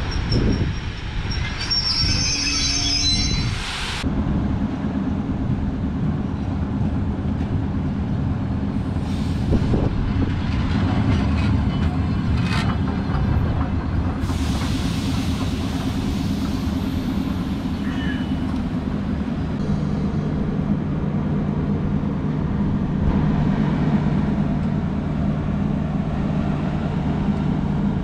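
A DR1AC diesel multiple unit's engine running steadily, a deep constant drone. In the first few seconds, before a cut, an electric train's wheels squeal as it moves along the track.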